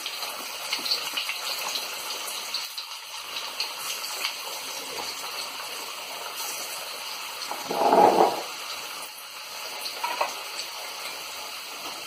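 Moong dal pakora batter frying in hot oil in a kadhai over a high flame: steady sizzling with scattered crackles as small dollops are dropped in by hand. About two-thirds of the way through there is a brief, louder burst of sound.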